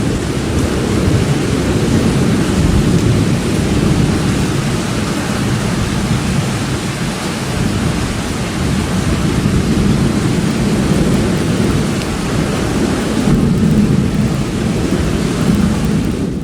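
Continuous rolling thunder over steady heavy rain during a severe thunderstorm, a deep rumble that swells and eases without a single sharp crack.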